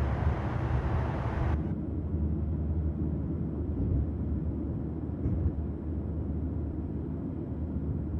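Steady low rumble of a running vehicle. A brighter hiss above it cuts off suddenly about one and a half seconds in, leaving the low hum.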